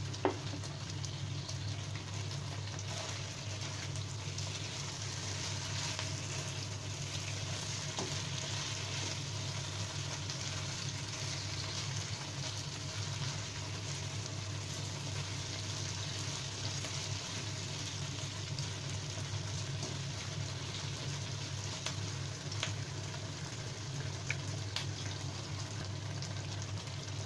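Chicken pieces and sliced onion sizzling steadily in dark soy sauce in a nonstick wok, with a few clicks of the spatula as they are stirred. A steady low hum runs underneath.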